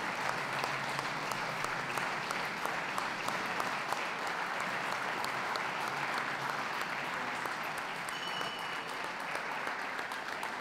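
A crowd applauding steadily, dense clapping that eases a little near the end. A brief high-pitched tone sounds about eight seconds in.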